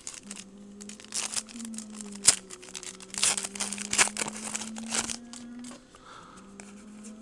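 Foil trading-card pack wrapper crinkling and tearing as a pack of football cards is opened and handled, with a sharp click a little over two seconds in.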